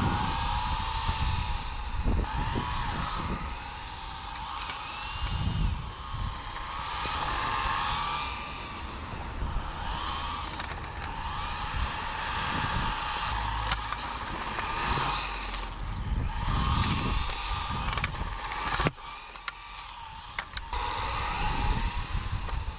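Electric motor and gear drive of a 1/28-scale SINOHOBBY TR Q7 micro RC drift car whining, the pitch rising and falling again and again as the throttle is worked, over a low rumble. The sound drops away briefly near the end.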